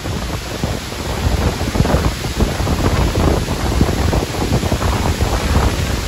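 Strong gusting wind thrashing through tall trees, the leaves rushing and rustling, with heavy wind buffeting on the phone's microphone. The wind picks up about a second in and stays strong.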